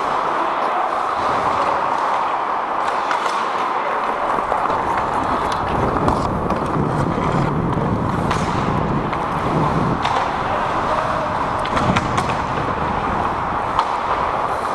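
Ice hockey play: skate blades scraping and carving on the ice under a steady noisy hiss, with several sharp clacks of sticks and puck. Wind rumble on the microphone comes in about four seconds in.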